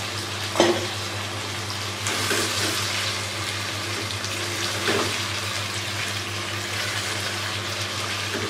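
Potato and aubergine curry simmering and sizzling in a non-stick pan with freshly added water. A sharp knock about half a second in is the loudest sound, with a smaller one near five seconds, and a spatula stirring the curry toward the end.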